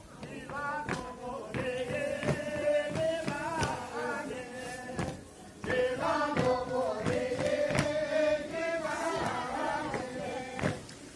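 Music with singing voices, sung lines held and bending in pitch over repeated drum-like hits.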